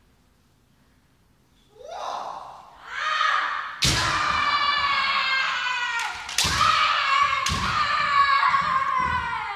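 Kendo sparring: long drawn-out kiai shouts from the fighters, pierced by about four sharp hits of bamboo shinai strikes and stamping on the wooden hall floor, starting about four seconds in.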